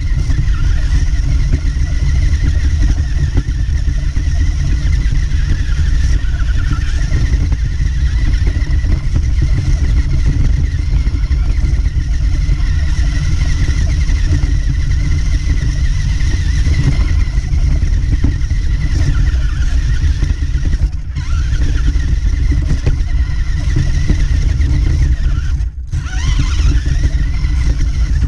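Electric motor and gears of a 1:18 four-wheel-drive RC car driving over grass, heard from a camera on the car: a whine that wavers up and down with the throttle over a heavy low rumble. The whine drops out briefly twice near the end.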